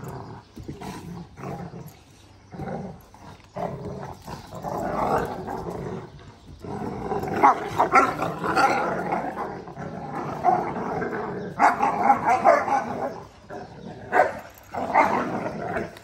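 Two Kangal puppies play-fighting, growling at each other in irregular bursts that grow louder and almost continuous through the middle, then break into shorter outbursts near the end.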